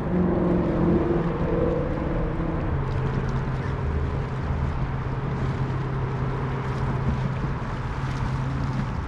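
An engine drones steadily, with a pitch drop about three seconds in, over a steady hiss.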